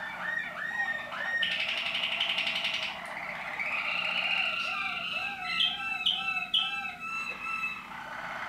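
Waterslager (Malinois) canaries singing: a run of rising whistled notes, then a fast rolling trill about a second and a half in, then lower bubbling, water-like notes with three quick falling calls over them near the end.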